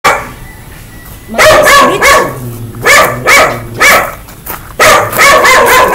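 A dog barking loudly and repeatedly, in short groups of two or three barks, then a faster unbroken string of barks near the end.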